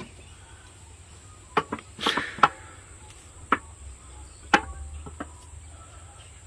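Scattered sharp metal knocks and clunks, about seven over a few seconds, with a brief scraping rattle among them, as the manifold is worked loose on a Mitsubishi 4D56 turbo-diesel engine. A faint steady high insect drone runs underneath.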